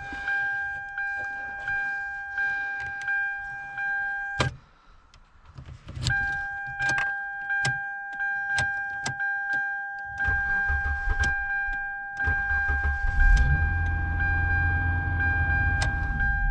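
2007 Hyundai Sonata's electronic warning chime sounding steadily while the key sits in the new ignition switch with the doors open. It cuts out about four seconds in and comes back a second and a half later, over repeated clicks of the key and switch. A low hum joins in after about ten seconds.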